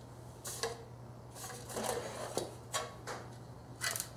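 A battery charger's spring clamp being handled and clipped onto engine metal to find a good ground: a series of short metallic clicks and rattles, over a steady low hum.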